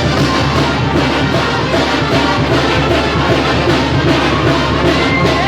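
Brass band music with drums playing loudly, on a steady beat.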